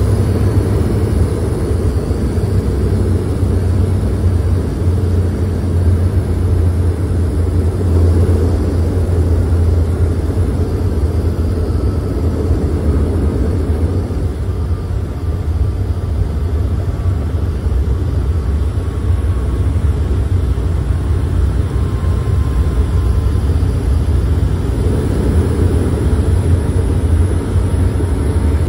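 Cabin noise of a DHC-8 Q400 turboprop rolling along the runway just after touchdown: its Pratt & Whitney PW150A engines and six-bladed propellers make a steady low drone over a rushing noise.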